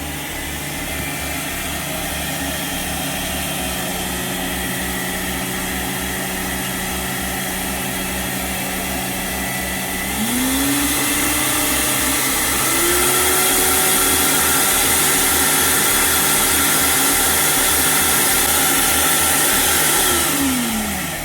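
Zelmer washing vacuum cleaner's motor, fitted with new bearings, running with a steady hum. About ten seconds in it is switched to a higher speed with a rising whine and louder running, steps up once more a couple of seconds later, and near the end is switched off and winds down with falling pitch. The hum is loud, which the repairer puts down to air swirling in the airflow with no filters fitted, not to the motor itself.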